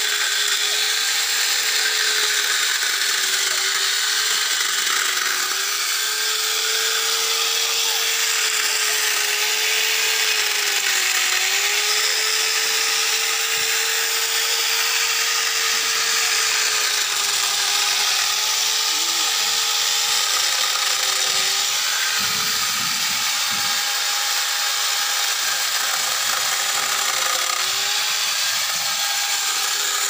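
Electric chainsaw with a 16-inch bar running without a break and cutting into a block of wood, its motor whine dipping slightly in pitch now and then as the chain bites.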